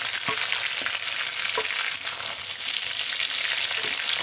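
Prawns frying in hot oil in a kadai, a steady sizzle, with a few light scrapes of a metal spatula against the pan as the fried prawns are lifted out.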